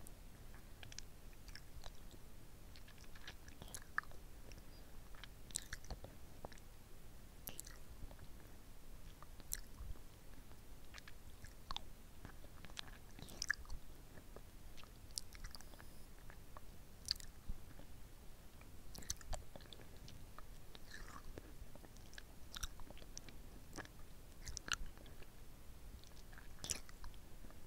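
Close-miked wet mouth sounds of a hard lollipop being sucked and licked, picked up by a mini microphone at the lips: irregular sharp clicks and smacks as the candy moves against lips and teeth.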